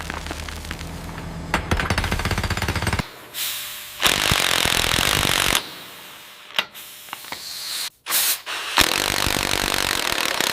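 Demolition power tools at work. First comes rapid jackhammer-like hammering over a low machine hum for about three seconds. Then a loud steady hiss of cutting noise, then shorter spells of cutting and knocking that start and stop abruptly.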